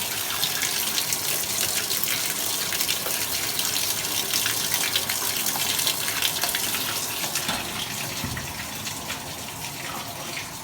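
Top-loading washing machine filling with cold water: a steady rush of water pouring into the drum, easing slightly quieter near the end.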